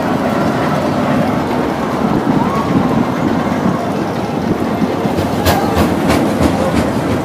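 Roller coaster train running along its track: a steady rumble with a quick run of sharp clacks near the end.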